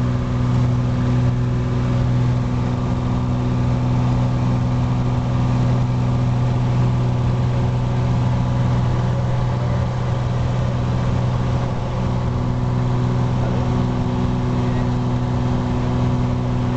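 Cessna 182's piston engine and propeller heard from inside the cabin, a loud, steady drone holding constant pitch during the climb after takeoff.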